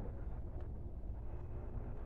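Distant SM42 diesel shunting locomotive, heard as a low steady rumble, with a faint engine hum coming in about halfway through.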